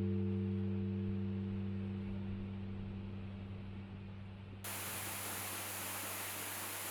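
The last sustained low notes of background music fade out. About two-thirds of the way in, a steady hiss starts abruptly.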